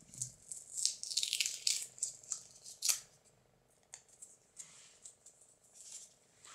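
Packing paper crinkling and rustling in quick bursts as it is pulled and picked out of a leather knife sheath's belt loop, loudest in the first three seconds, then a click and a few faint ticks.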